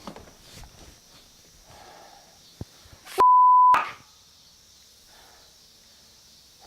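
A single steady high beep about half a second long, a little after three seconds in, with the other audio cut out around it: an edited-in censor bleep. Faint rustling and room noise come before and after it.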